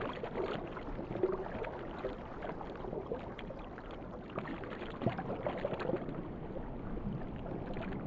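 Underwater water sounds: a steady wash of moving water with scattered faint ticks and a few short bubbling gurgles.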